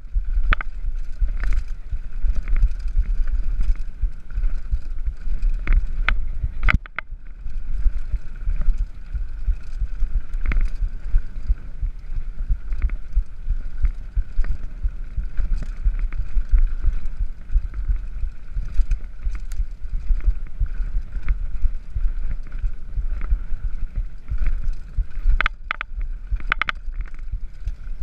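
Mountain bike descending a dirt forest singletrack at speed: steady rumble of tyres and wind buffeting the bike-mounted camera's microphone, with sharp rattles and clacks from the bike over bumps, a burst of them near the end.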